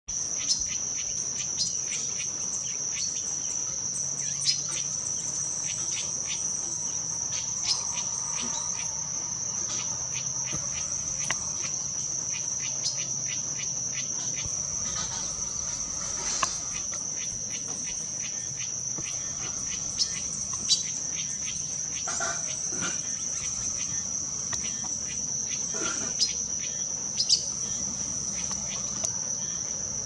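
A steady, high-pitched insect drone, unbroken throughout, with short sharp clicks scattered irregularly through it.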